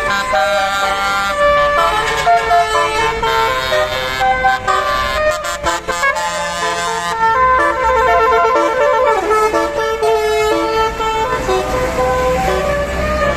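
Bus's Basuri 'telolet' multi-tone air horn playing a tune: a run of steady horn notes changing pitch in steps, with a falling slide about nine seconds in.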